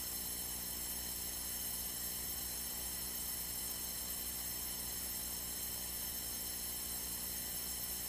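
Steady hum and hiss on a light aircraft's intercom audio feed, with no radio traffic.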